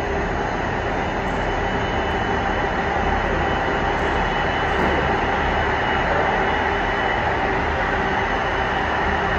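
Jet engines of a twin-engine widebody airliner taxiing at low power: a steady rumble with a thin high whine over it.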